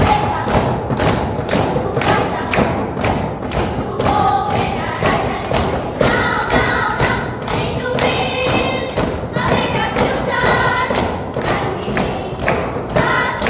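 A steady beat of thumps, about three a second, with a chorus of children singing over it from a few seconds in.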